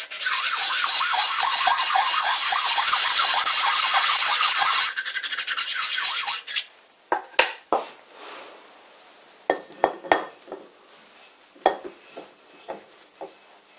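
Diamond sharpening plate rubbed quickly back and forth by hand over the edge of a faceplate's cast-iron hub, deburring it: a continuous rasping that turns into separate strokes and stops about six and a half seconds in. After it, a few scattered sharp metal clicks and knocks.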